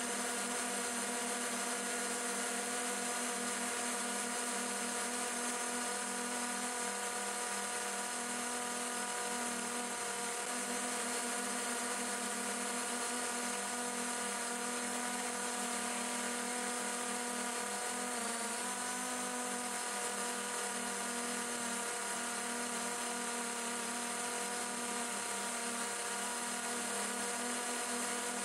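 Multirotor drone's electric motors and propellers whining steadily, several pitches held together over a hiss, with a brief wobble in pitch about two-thirds of the way through.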